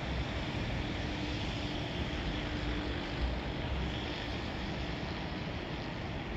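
Steady wind rushing on a phone microphone outdoors, with a faint steady hum under it from about half a second in to about three seconds.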